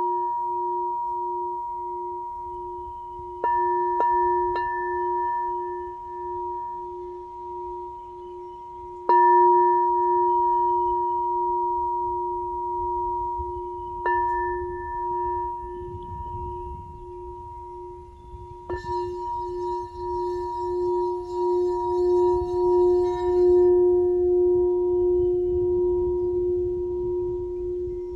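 Crystal singing bowl ringing with a steady, clear low tone and higher overtones, struck five times with a soft striker so that each stroke renews the ring. Over the last several seconds the tone swells and fades about once a second.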